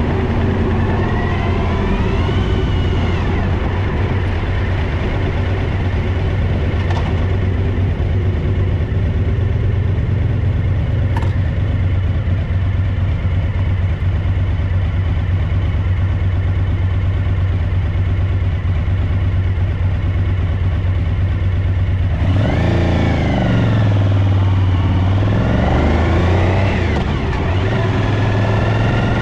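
An engine running steadily, its pitch rising and falling briefly about two seconds in and again several times near the end.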